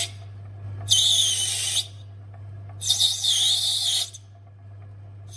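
Myford ML7 lathe roughing out a plastic gasket blank: the motor hums steadily while the cutting tool hisses and squeals through the plastic in two cuts, each about a second long, about a second and three seconds in.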